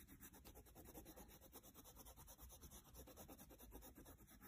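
Faint wax crayon scribbling on sketchbook paper: a fast, even back-and-forth scratching of the crayon strokes.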